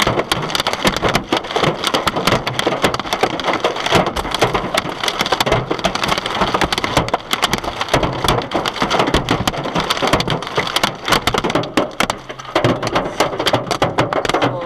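Heavy hail pounding a car's roof, body and glass, a dense, continuous clatter of hard hits heard from inside the cabin. The car's glass has been smashed by the hailstones.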